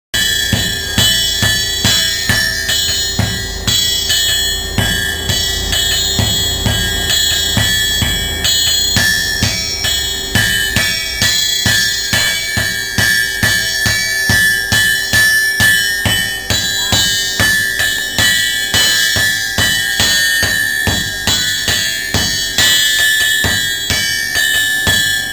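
Hand hammer and sledgehammers striking a hot steel billet on an anvil in rapid turns, about two or three ringing metallic blows a second, during hand forging of a sword billet.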